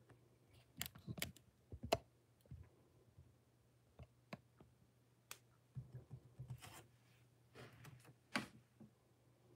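Scattered light clicks and taps in small clusters, over a faint steady hum.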